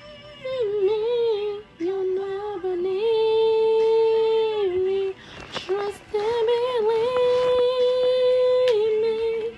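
Music with a woman singing a slow melody in long held notes, in two phrases with a short break about halfway.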